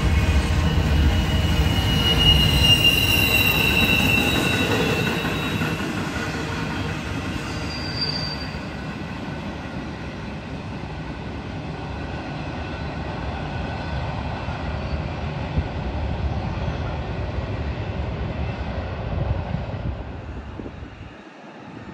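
Freight train cars rolling past with wheels squealing on the rails, loudest in the first few seconds. The rumble then slowly fades and drops off sharply just before the end.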